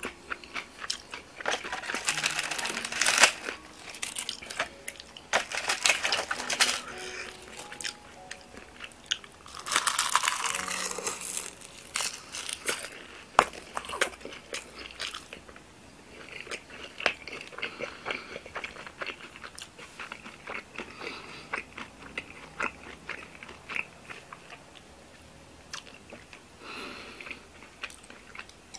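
Close-miked chewing of a mouthful of yeolmu (young radish kimchi) bibimbap, wet and crunchy, with a red plastic spoon scraping and clicking against a stainless steel bowl. The sounds come in bursts with many sharp clicks, busiest in the first half and sparser later.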